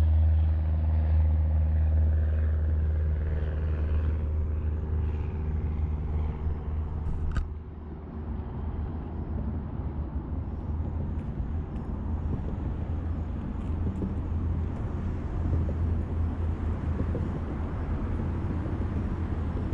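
An engine running steadily with a low hum. About seven seconds in there is a sharp click, and after it the sound turns rougher and more noisy, a little quieter.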